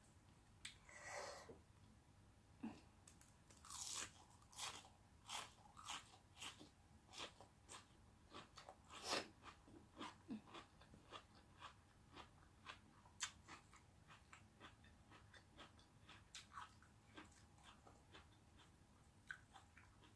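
Close-up chewing of crisp food: a steady run of short crunches, about one to two a second, that grow fainter and sparser toward the end.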